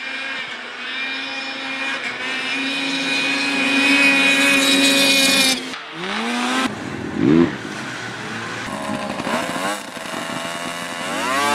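Snowmobile engines at high revs. One runs steadily at full throttle, growing louder until it cuts off abruptly about halfway through; then engines rev up and down in short sweeps, and near the end one revs up sharply.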